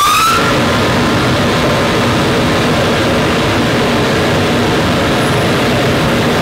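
Pulverized coal burner firing: a steady, loud rushing noise of the flame and combustion air. A rising whine from the burner's blower climbs and tops out about half a second in.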